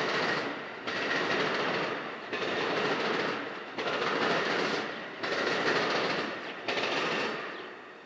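Amtrak Superliner bi-level passenger cars rolling past, their wheels making a rhythmic clatter that surges about every second and a half. The noise fades out near the end as the last car goes by.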